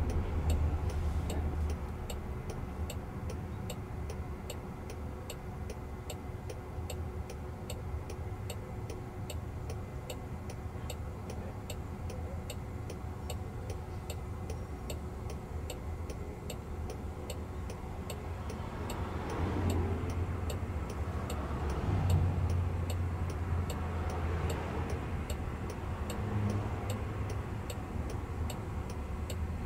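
Jaguar I-Pace turn-signal indicator clicking steadily and evenly inside the cabin, over a low hum. Passing traffic rumbles louder for a few seconds about two-thirds of the way through.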